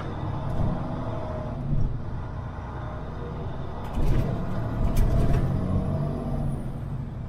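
Semi truck running on the road: steady engine and road rumble, with a few sharp knocks or rattles about four to five seconds in.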